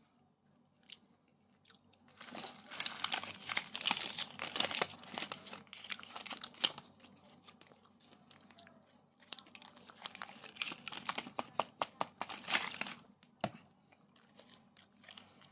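Crinkly plastic wrappers of military dry-ration bars rustling and crackling as they are handled, in two long spells, with a single sharp tap near the end.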